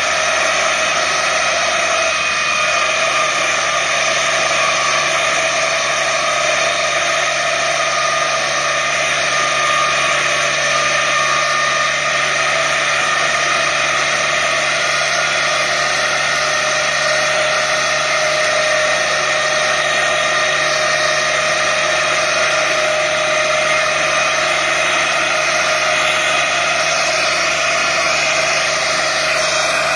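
Tractor running with a PTO-driven two-drum rotary mower, mowing tall grass: steady machine noise with an even high whine.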